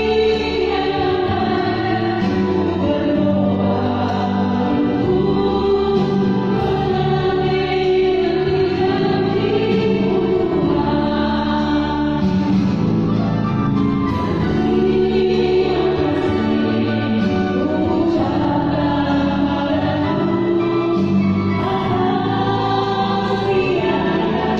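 A choir singing a hymn-like piece in several voice parts, with sustained, slow-moving chords.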